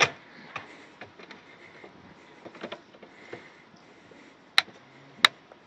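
Sharp clicks of switches being flipped at a boat's helm, several small ones spread through and two louder ones about a second apart near the end, against a low background.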